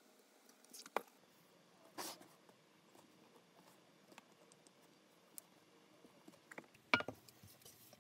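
Quiet handling of leather pieces and a small white card spreader on a cutting mat: a few soft taps and a brief rubbing sound about two seconds in, with the loudest cluster of clicks about seven seconds in.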